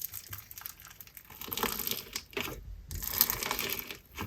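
Clear sugar scrub slime with beads being squeezed and worked by hand, giving a dense, crunchy crackle. It comes in two longer stretches with a short pause between them.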